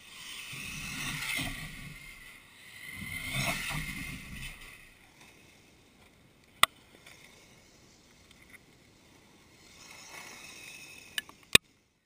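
A radio-controlled car drives past twice, its motor and tyres swelling up and fading away each time. Later come a single sharp knock and, near the end, two more.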